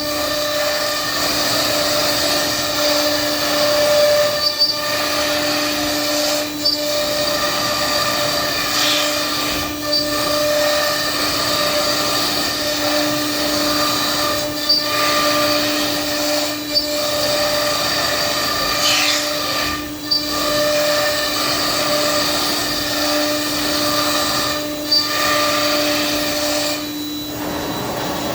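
Thermwood CS-45 CNC router running: a steady whine over a rushing noise, briefly dipping every few seconds. The main tone stops shortly before the end.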